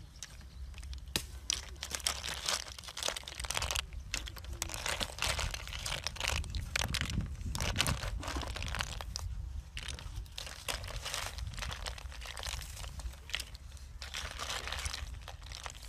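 Boiled snail shells clicking and rattling against a woven bamboo tray and a chopstick as they are lifted from the pot and handled, with dense, irregular crackling and rustling throughout.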